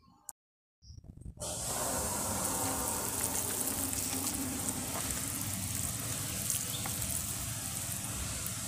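Water pouring from a plastic bottle onto the soil and leaves of a potted plant, a steady splashing hiss that starts about a second and a half in.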